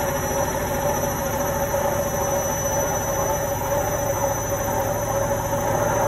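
Indesit front-loading washing machine spinning its drum: a steady motor whine over a fast, even hum that holds level throughout.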